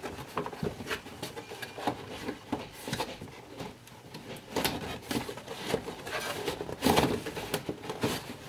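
Toy packaging being handled: irregular rustles, taps and clicks, with a louder cluster about seven seconds in.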